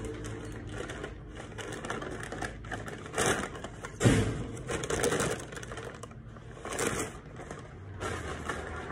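Irregular knocks and crinkling from objects being handled, with the sharpest knock about four seconds in.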